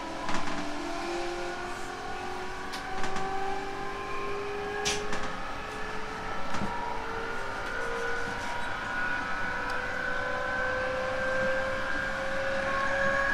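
Onboard running sound of a JR 311 series electric train accelerating: the traction motors' whine rises slowly in pitch, several tones gliding upward together, over steady rumbling track noise. A few sharp clicks come through, one strongest about five seconds in.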